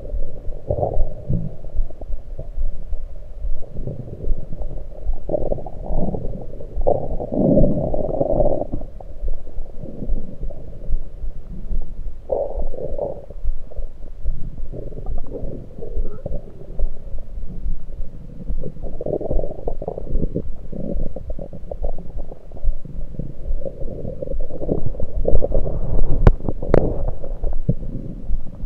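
Stomach gurgles and rumbles heard through an electronic stethoscope pressed to the belly: irregular low-pitched bubbling bursts, the sound of liquid moving through the gut. Near the end come two sharp clicks.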